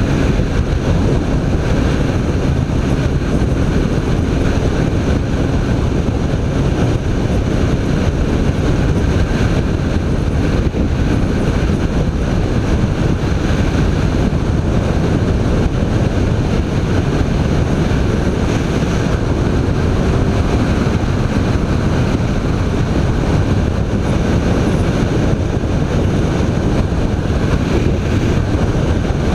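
BMW K1300 R inline four-cylinder engine running while riding at a fairly steady pace, mixed with heavy wind rush on the microphone.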